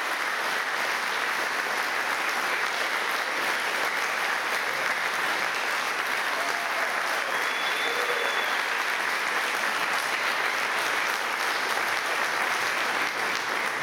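Audience applauding steadily at the end of a choir's song.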